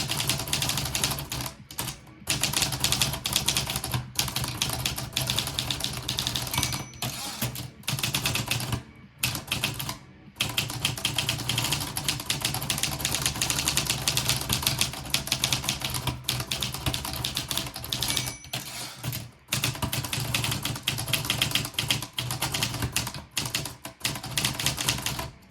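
Fast typing on an Olivetti Lettera 32 manual portable typewriter: a dense run of type-bar strikes with a few brief pauses, and a short high ring twice, about seven and eighteen seconds in.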